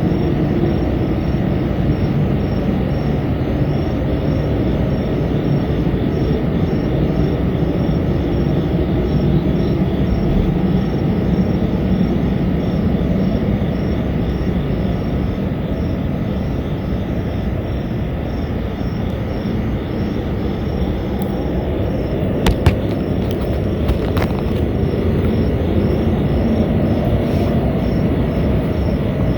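A steady, loud low rumbling drone of unidentified origin, the reported mystery noise, with insects chirping in a regular high pulse above it. A few sharp clicks come about three-quarters of the way through.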